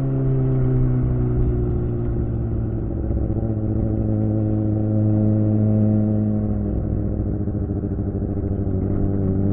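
Suzuki GSX-R600 K7's inline-four engine through a Yoshimura R11 exhaust, running while ridden. The engine note sinks slowly for about six seconds as the bike rolls off, changes sharply around seven seconds in, then rises again near the end.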